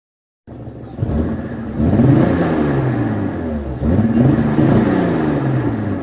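A car engine being revved: it starts suddenly about half a second in, and its pitch climbs and falls back twice.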